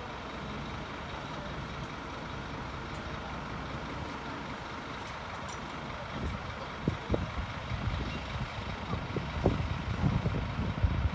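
Fire engines running steadily with a continuous low mechanical noise. From about halfway through, gusts of wind buffet the microphone unevenly.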